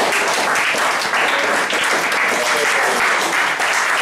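Small audience applauding steadily, many hands clapping at once.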